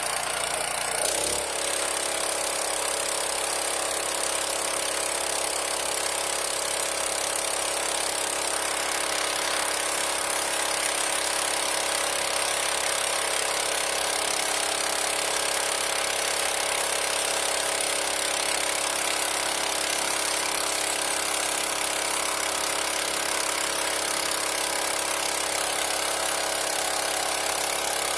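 Engine running steadily at part throttle while a nozzle is tested. About a second in the low rumble drops away and the engine settles into a constant speed, with a steady hiss high above it.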